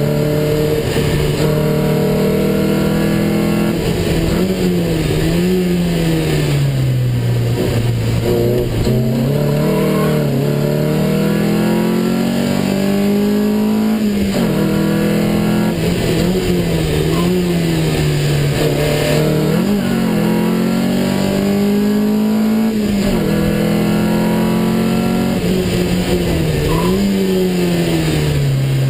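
Lotus sports car's engine heard from inside the cabin under hard driving, its pitch repeatedly climbing and then dropping back as it is driven through gears and corners, over road and wind noise.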